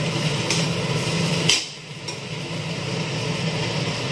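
Chowmein being stir-fried in a steel wok on a gas stove: steady frying and burner noise, with a few sharp clanks of the utensil against the wok, the loudest about one and a half seconds in.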